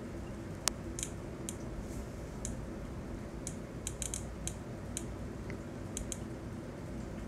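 Irregular short high ticks from a live lightning-strike map, one tick for each strike detected, a dozen or more scattered unevenly, over a steady low hum.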